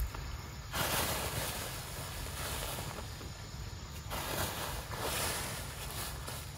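Wind buffeting the microphone outdoors: a low rumble throughout with rushing gusts that swell and fade, the first starting about a second in.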